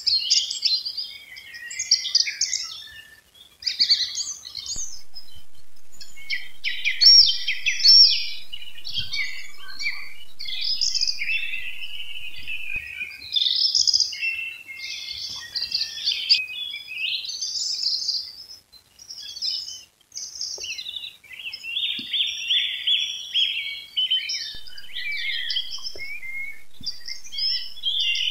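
Morning chorus of several songbirds singing at once: overlapping trills, warbles and chirps that run on with only brief lulls.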